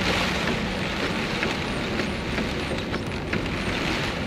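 Torrential downpour heard from inside a moving car's cabin: rain on the roof and windscreen and tyres on the wet road make a steady hiss, with faint ticks now and then.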